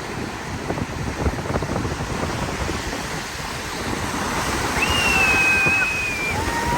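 Ocean surf washing onto the beach, with wind buffeting the microphone. Near the end a high, held call rises over the surf.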